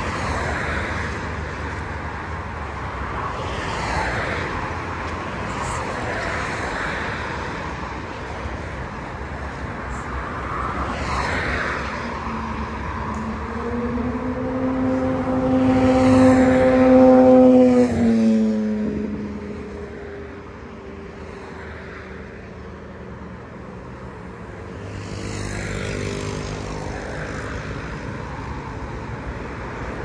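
Vehicles passing on a seaside road, a steady wash of traffic noise with repeated swells as cars go by. About halfway through, one vehicle's engine hum grows louder and then drops in pitch as it passes close by.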